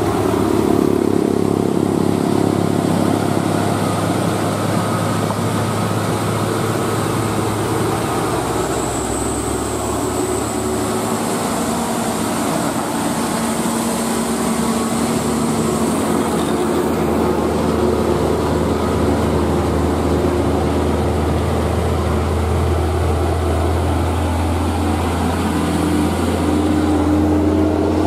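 Diesel engine of a UD Nissan Diesel dump truck running under load as it climbs the hill and passes close by, with a brief faint high whine about a third of the way in. In the second half a second heavy truck's engine grows louder as it approaches.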